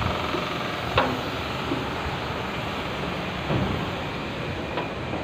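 Steady drone of factory machinery, with a few sharp knocks of footsteps on steel stairs, the loudest about a second in.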